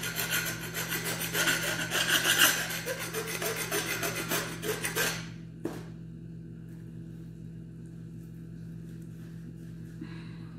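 A knife sawing quickly back and forth through a piece of raw meat, a fast run of scraping strokes lasting about five seconds. A single knock follows, and a steady low hum runs underneath.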